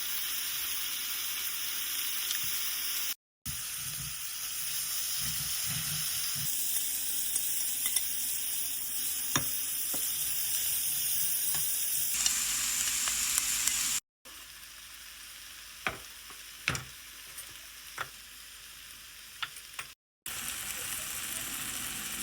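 Pork belly frying in a pan: a steady sizzle with scattered clicks of a utensil against the pan. The sizzle cuts out abruptly three times, and in the later part it is quieter, with separate taps standing out.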